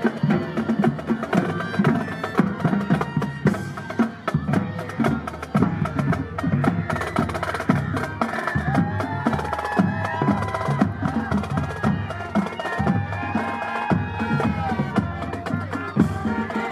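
High school marching band playing as it marches past: the drumline beats a steady rhythm on snare and bass drums, with brass carrying a melody over it, stronger in the second half.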